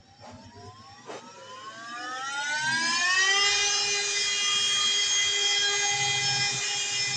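Small DC electric motor spinning up when powered from a battery: its whine rises steadily in pitch over about three seconds, then holds steady at full speed. A couple of faint clicks come in the first second.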